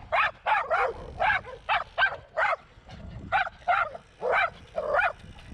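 A dog barking repeatedly in quick runs of short, sharp barks, about fifteen in all, with a brief pause around the middle. It is chasing a passing cyclist.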